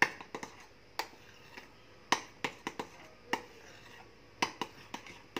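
A mixing utensil clicking and tapping against the side of a bowl as whipped cream is stirred by hand: about fifteen irregular sharp knocks, a few in quick clusters, with soft squishing between.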